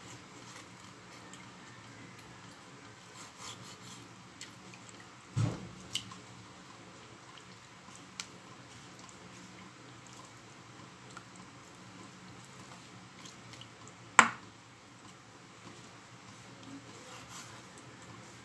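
Kitchen knife cutting raw chicken on a wooden chopping board: faint wet squishing of the meat, broken by a few sharp knocks of the blade striking the board, the loudest about five and fourteen seconds in. A low steady hum runs underneath.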